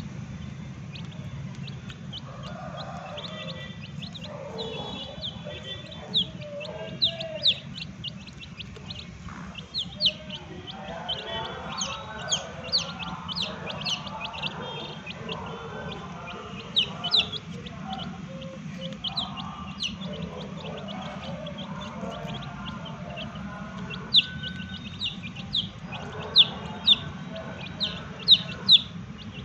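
Young chicks peeping: many short, high-pitched, falling chirps, coming louder and thicker near the end, over a steady low hum.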